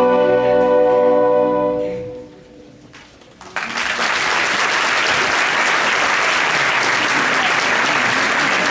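An orchestra holds the closing chord of the piece, which dies away about two seconds in. After a brief hush, an audience breaks into steady applause.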